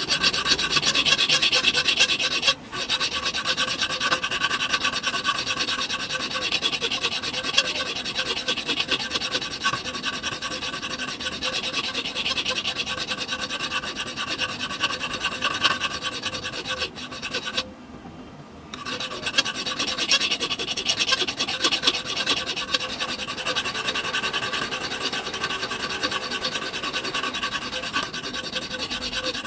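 Steel knife blank being filed by hand: continuous rasping and scraping of file on metal, with a faint ringing from the steel. The work pauses briefly twice.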